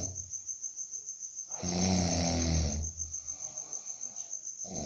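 A man snoring in deep sleep: one loud, rasping snore about a second and a half in that lasts about a second, quieter breathing around it, and the next snore starting at the very end. Crickets chirp steadily in the background.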